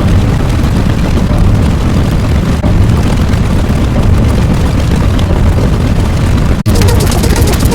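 Loud, continuous low rumbling noise from a sound effect. It cuts out abruptly about six and a half seconds in and gives way to a rapid, even crackling.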